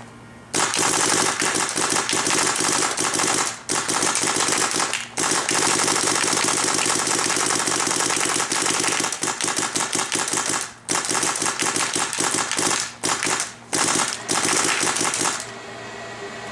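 Planet Eclipse Ego 11 paintball marker fitted with a D.A.R.T. bolt firing long, rapid strings of shots, a dense rattle of pops broken by a few brief pauses. It stops about a second before the end.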